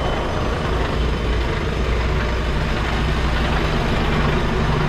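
Mercedes-Benz Actros L truck on the move: a steady low diesel engine drone with road noise, getting a little heavier about a second in.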